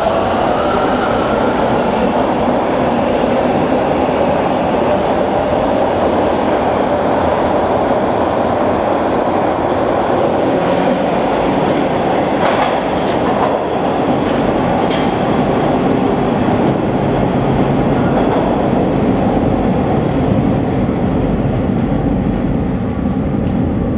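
Toronto subway train pulling out of the station: a steady loud rumble of wheels and traction motors, with the motor tone falling near the start. A few sharp clacks from wheels over rail joints come about halfway through.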